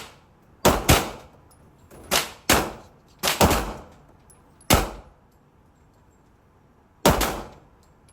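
Handgun shots fired one at a time at uneven intervals: about six sharp reports, with a long pause before the last one, each ringing out briefly in the range.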